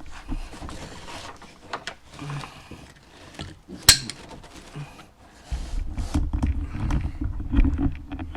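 Handling noise from a Tucktec folding kayak and its straps: scattered rustles and light knocks, with one sharp click about four seconds in. A low rumble sets in about five seconds in.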